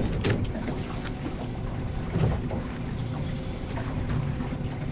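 Fishing boat on the water: a steady low rumble with wind buffeting the microphone, broken by a few light knocks.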